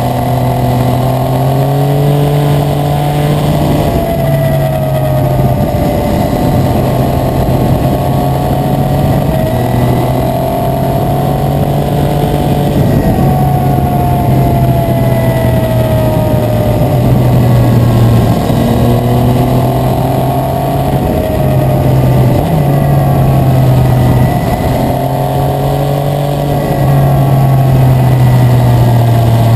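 2017 Yamaha Tracer 900's inline three-cylinder engine breathing through an Akrapovic exhaust, running loudly under way, its revs rising and easing repeatedly with a few step changes.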